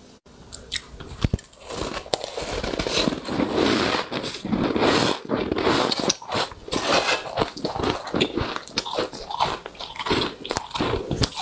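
Powdery freezer frost crunching close to the microphone as it is scooped with a metal spoon and bitten and chewed: a dense run of soft crunches broken by many sharp clicks.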